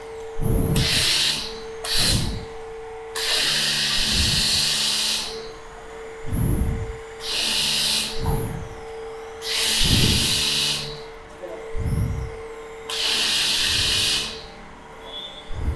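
A pressure washer spraying foam onto a motorcycle in repeated bursts of hiss, about six in all, each lasting one to two seconds. A steady low hum runs underneath and stops and starts between bursts.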